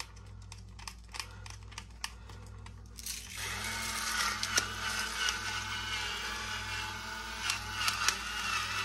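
Gravity-activated electric pepper grinder running and grinding whole black peppercorns: a steady whirring with crackling that starts about three seconds in, after a few light clicks and taps as the mill is handled.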